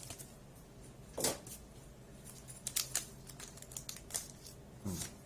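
Naruto Kayou trading cards being handled: a few short, sharp clicks and taps as cards are slid and flipped, the loudest about a second in.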